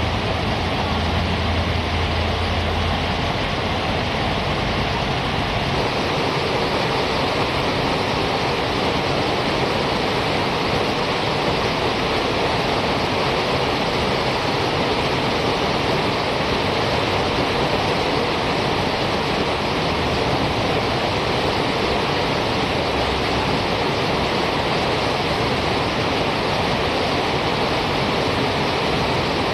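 River rapids rushing steadily, a loud even wash of whitewater, with a low hum for the first three seconds.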